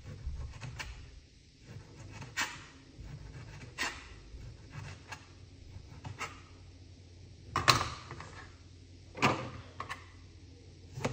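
A lime being peeled by hand: scattered short knocks and scrapes, about one every second or two, the loudest about two-thirds of the way in, over a low steady hum.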